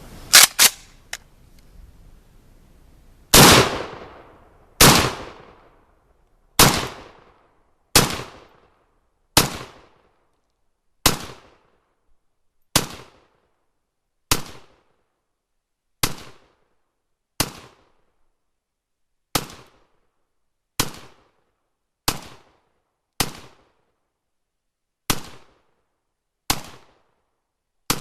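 A Zastava PAP M92 AK-pattern pistol in 7.62x39mm firing slow, aimed single shots, about sixteen in all, roughly one every second and a half. Each shot is a loud crack with a decaying echo. A few sharp clicks come in the first second, before the shooting starts.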